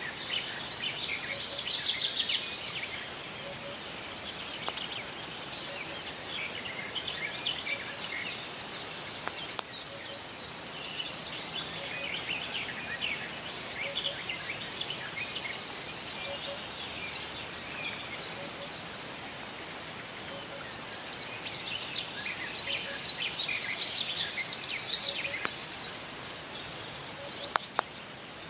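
Several wild birds singing over a steady background hiss, with many short chirps and a fast trill that swells near the start and again about three-quarters of the way through. A faint low note repeats about every two seconds, and there are a few sharp clicks.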